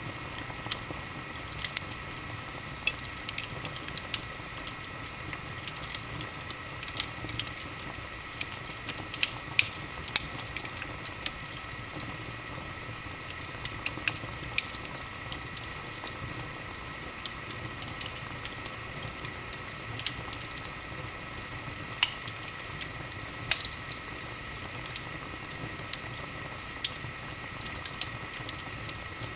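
Wood fire burning in an open fireplace, crackling and popping with frequent sharp irregular snaps over a steady hiss. A faint steady high whine runs underneath.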